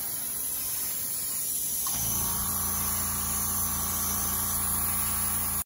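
Airbrush spraying thinned acrylic primer, a steady hiss of air and paint. About two seconds in, a small motor starts up with a steady hum under the hiss: the airbrush compressor kicking on.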